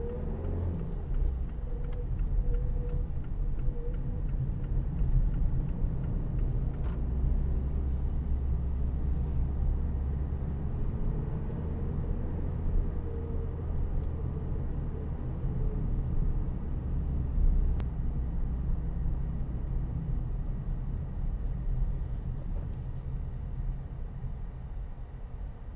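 Steady low rumble of engine and road noise inside the cabin of a Mazda2 with the 1.5-litre SKYACTIV-D four-cylinder turbodiesel, driving along.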